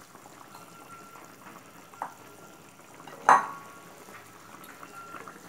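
Curry broth boiling in a pan with a steady low bubbling. A light tap about two seconds in and a sharp clink a little after three seconds, the loudest sound, stand out over it.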